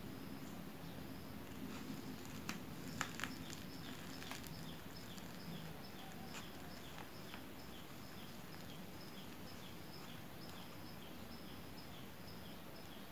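Fingers rolling a thin roti sai mai crepe around cotton-candy strands on a plate: faint handling sounds with a few sharp clicks between about two and four seconds in. Behind it, a regular chirping repeats about two to three times a second.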